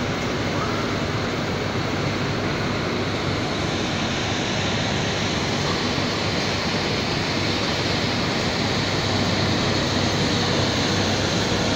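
Steady roar of industrial plant machinery, with a faint steady hum that grows a little stronger near the end.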